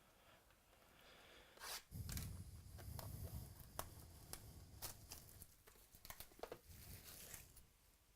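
Trading card pack wrappers being torn open and crinkled, with scattered sharp clicks and short rustles.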